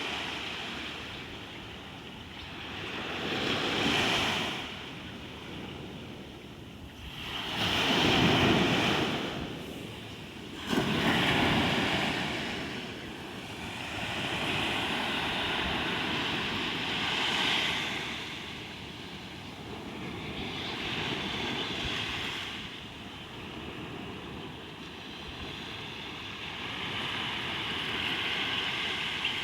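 Ocean waves breaking and washing in, swelling and fading every few seconds. The loudest waves come about eight seconds in and, with a sudden crash, about eleven seconds in.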